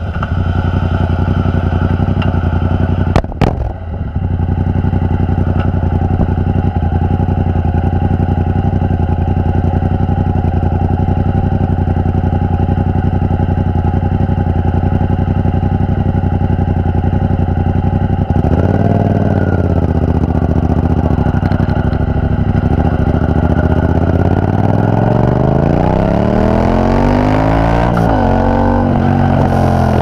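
Yamaha FZ-07's 689 cc parallel-twin running through a Ransoto aftermarket exhaust with a carbon-fibre can. It ticks over steadily at a stop, with a brief knock about three seconds in. It is blipped once about halfway through, then the bike pulls away, the exhaust note rising under acceleration, dropping at a gear change near the end and climbing again.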